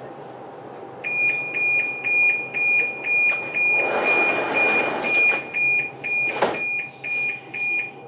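Door-closing warning beeps of a Budapest M4 metro train: a rapid series of high, evenly spaced beeps over a steady hum. A rush of noise about four seconds in and a sharp knock near the end come from the doors sliding shut.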